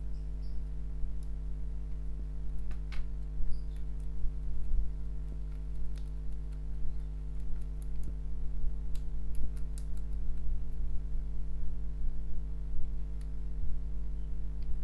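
Faint, scattered scratches and clicks of a wooden stick scraping crumbled coating and debris off a washing-machine circuit board, over a steady low hum.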